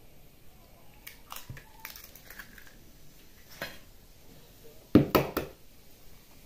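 Scattered light clicks, then a short loud cluster of cracking knocks about five seconds in: eggs being cracked over a mixer bowl of sugar.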